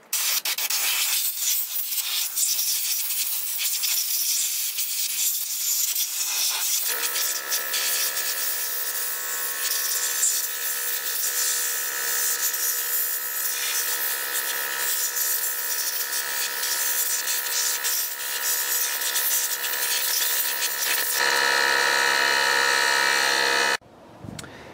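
Compressed-air blow gun hissing steadily as it blows loose dirt off the top of the engine, ending shortly before the end. A steady droning tone joins about seven seconds in and drops out a few seconds before the hiss stops.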